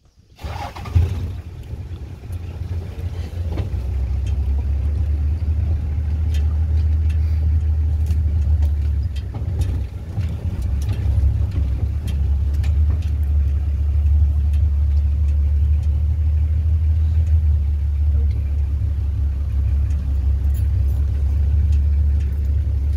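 Game-drive vehicle's engine running as the vehicle drives slowly along a dirt track: a steady low drone that sets in at the start and stays loud, with scattered light clicks over it.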